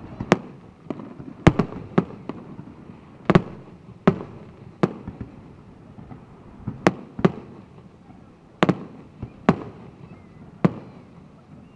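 Aerial fireworks shells bursting overhead: about fifteen sharp bangs at irregular intervals, some in quick pairs, each trailing off in a short echo.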